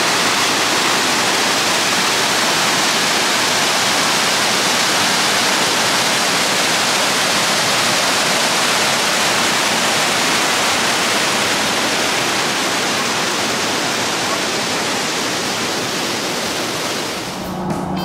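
Waterfall: a loud, steady rush of falling water that drops away shortly before the end.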